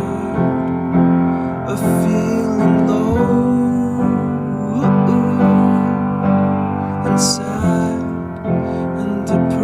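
Background music: an instrumental passage led by piano or electric piano, with sustained chords and a few light percussion hits.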